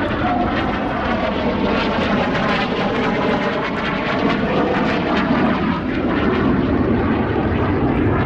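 Aircraft engine droning steadily, its pitch wavering slowly.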